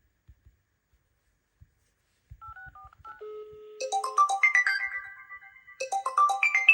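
A few faint taps, then short electronic beeps and a steady low tone, followed about four seconds in by a smartphone's melodic ringtone: a short phrase of bright rising notes that repeats about every two seconds.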